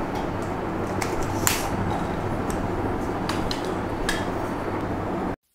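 A few light clicks and knocks from a camera tripod being handled, over a steady background hiss; everything cuts off abruptly near the end.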